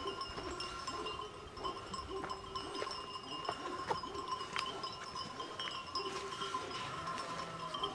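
Sheep bells ringing and clinking continually as the flock moves.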